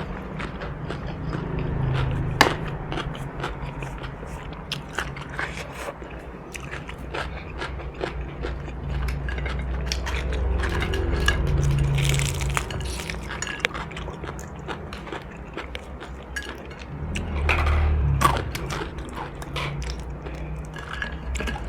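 Close-up eating sounds: crunchy food being bitten and chewed, with many sharp crackling crunches, over a steady low hum.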